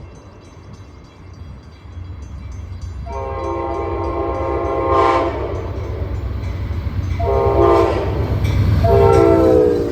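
Locomotive horn sounding the grade-crossing pattern as a train approaches: a long blast, a short one and a final long one, each a chord of several notes, with the final blast dropping in pitch as the train passes. Under it the rumble of the approaching train rises.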